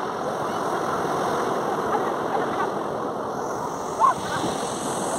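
Sea surf breaking and washing up a sandy beach, a steady rush of water, with one short knock about four seconds in.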